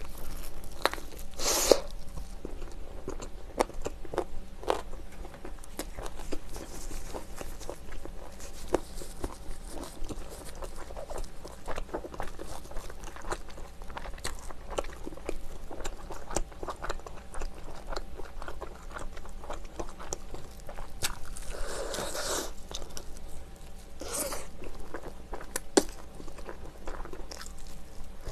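Close-miked biting and chewing of sauce-coated fried chicken: frequent crisp, irregular crunches of the fried coating mixed with wet chewing.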